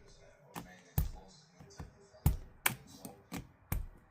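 Keycaps being pulled off a mechanical keyboard: a quick, irregular series of sharp clicks and snaps, about ten in four seconds.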